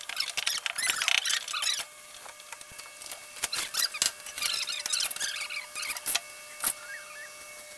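Wet cement mortar being scooped by hand from a pan and pressed and patted around a PVC pipe joint: gritty scraping and patting in two spells, with a couple of sharp clicks near the end.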